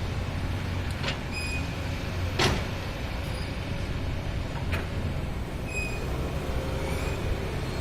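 Excavator engine running steadily with a low rumble, with four sharp knocks. The loudest knock comes about two and a half seconds in.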